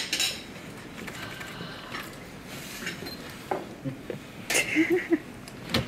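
Room background with faint murmuring and a few small clicks and knocks. A brief voice sound comes about four and a half seconds in, and a sharp click follows near the end.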